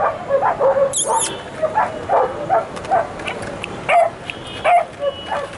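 Dogs barking in a rapid run of short, sharp barks.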